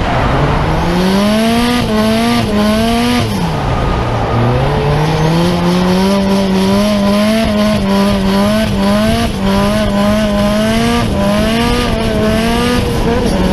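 A car engine revving hard while drifting. The revs climb, fall sharply about three seconds in, then climb again and hold high with quick small wobbles, over steady tyre noise.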